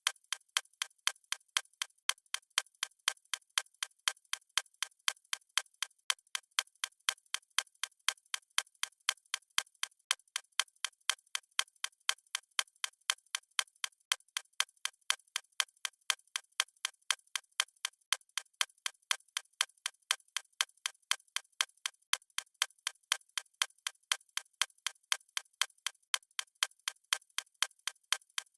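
A watch ticking: a steady, even run of sharp, light ticks, several a second, with no change.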